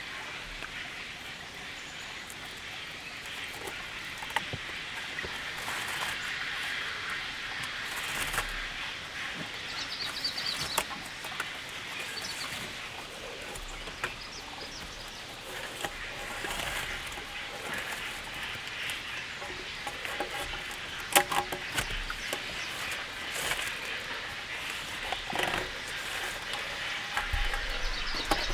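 Steady outdoor noise with many scattered sharp taps and knocks, and a few brief high chirps about ten seconds in.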